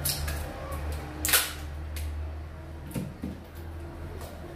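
A few sharp clicks and knocks from a phone and small tools being handled on a repair bench, the loudest about a second and a half in, over a steady low hum.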